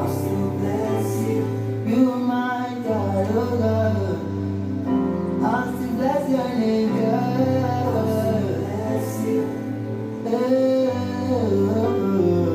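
Gospel worship music with singing over held accompaniment chords.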